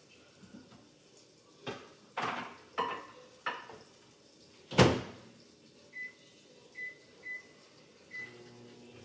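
Small plastic containers knocking as they are set inside an over-the-range microwave, then the microwave door shut with a loud bang about five seconds in. Four short keypad beeps follow, and near the end the low hum of the microwave starting to run.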